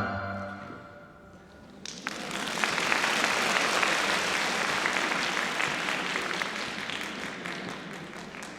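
The final chord of a taishōgoto ensemble dies away, and about two seconds in the audience breaks into applause, which slowly fades.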